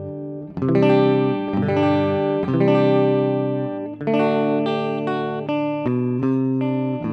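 Les Paul Standard electric guitar on its middle pickup, played through the clean channel of a Joyo R-15 Preamp House amp-simulator pedal: a series of clean chords, each struck and left to ring before the next.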